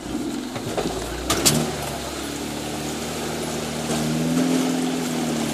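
Suzuki SJ413's 1.3-litre four-cylinder engine running at low revs, heard from inside the cabin. There are a couple of sharp knocks about a second and a half in, and the engine gets a little louder about four seconds in.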